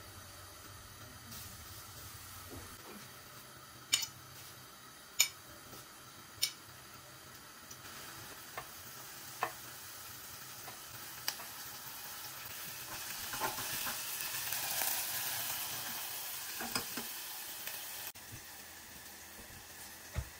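Food sizzling in oil in a pan, with three sharp knocks of a utensil against the pan a few seconds in and lighter taps after. About two-thirds of the way through, the sizzle swells louder, then drops off suddenly near the end.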